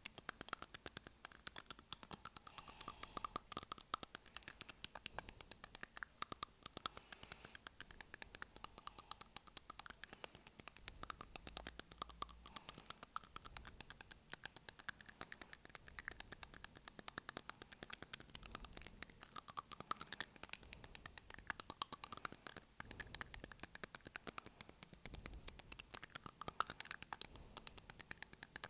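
Long fingernails tapping and scratching on front teeth, picked up close to a wired earphone microphone: rapid, irregular clicks, several a second.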